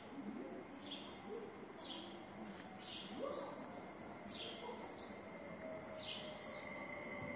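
Birds chirping, with many short, high calls that slide down in pitch and come in quick clusters, over a faint steady whine in the background.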